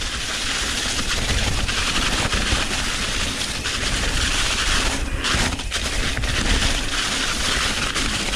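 Mountain bike rattling and clattering over a rough, rocky trail on a fast descent, with steady wind rush and tyre noise on the helmet camera's microphone.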